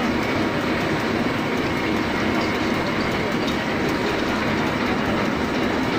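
CNC drilling machine running, its spindle drilling into a metal workpiece held in a large chuck: a steady, dense machining noise that holds an even level throughout.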